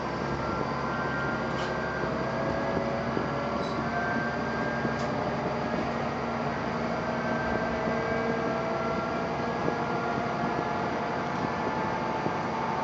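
Diesel railcar running along the line, heard from inside the passenger cabin: a steady engine and rail drone with several tones slowly rising in pitch as it gathers speed, and a few faint clicks.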